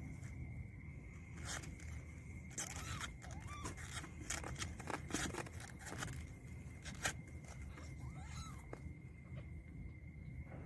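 Kittens scuffling as they play-fight: scattered scratching and scraping with sharp clicks, and a few short high mews. A faint steady high-pitched whine runs underneath.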